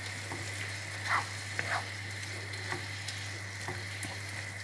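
Noodles with chicken sizzling in a non-stick frying pan, stirred with a wooden spoon: a steady hiss with a few soft scrapes and knocks of the spoon against the pan.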